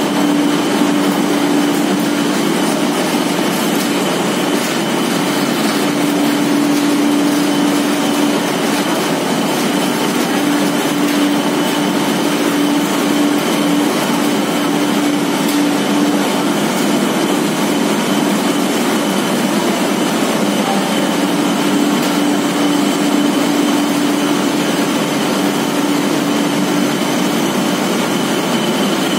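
Cotton waste recycling machinery running: belt-driven electric-motor blowers and roller processing machines making a loud, steady mechanical noise with a constant hum.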